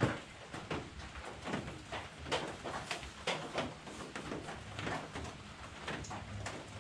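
Rain falling on clear corrugated plastic panels, heard from inside the small cabin: a continuous patter with irregular louder taps of heavy drops.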